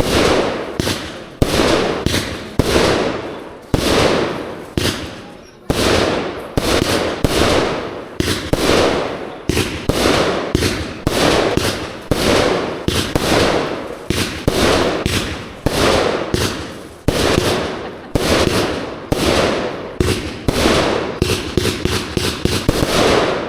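A 30 mm, 100-shot consumer fireworks cake firing shell after shell in quick succession, each a sharp bang with an echoing tail, about one to three a second. Near the end a rapid run of sharper pops comes through.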